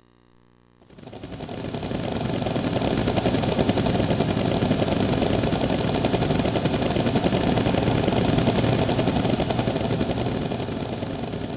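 A synthesized sound effect from a TJ Media PRO-2000 karaoke machine's Roland SC-55 sound module: a dense, noisy, fluttering sound that swells in about a second in, holds steady, and starts to fade near the end.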